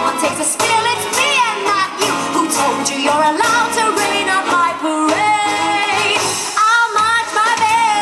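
Show music for a stage dance number, with a woman singing long, sliding notes that waver in pitch over the backing track.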